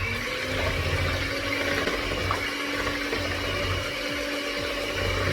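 Electric hand mixer running steadily, its beaters mixing pancake batter ingredients in a bowl: a constant motor whine over the whirr of the beaters.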